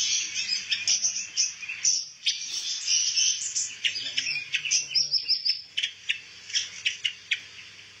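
Caged pancawarna songbirds chirping and twittering: a rapid string of short, high notes, with a quick run of repeated notes about five seconds in.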